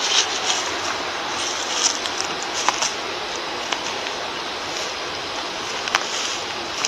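Hand garden cultivator's tines scratching through dry soil and mulch: a steady scratchy rustle with a few sharp light clicks.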